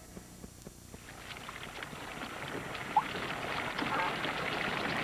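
Outdoor courtyard ambience on a film soundtrack fading in: an even hiss with many small clicks and taps, a brief rising chirp about three seconds in and another short call about a second later.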